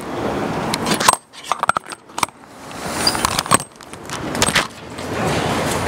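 Handling noise from a clip-on microphone being unclipped and passed from hand to hand: rustling with a cluster of sharp clicks and clinks about one to two seconds in.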